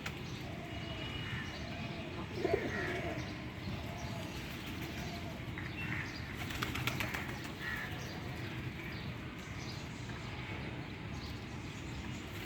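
Pigeons and other birds calling, with short chirps scattered throughout. About six to seven seconds in there is a quick flurry of clicks that fits wings flapping.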